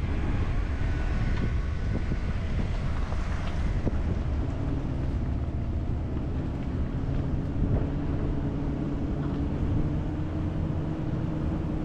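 A vehicle driving along with a steady engine drone and road rumble.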